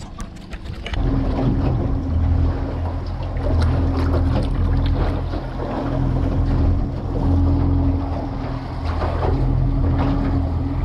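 Outboard motor of a small aluminium boat running steadily at low speed, a low even hum that comes in about a second in, with wind on the microphone and a few light knocks from handling the tackle.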